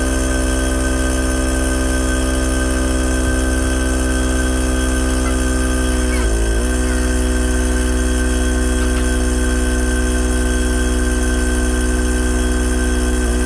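Air ride system's electric air compressor running steadily, filling the air tank. Its pitch dips briefly about six seconds in.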